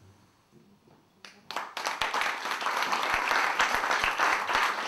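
Audience applauding, starting about a second and a half in after a brief quiet.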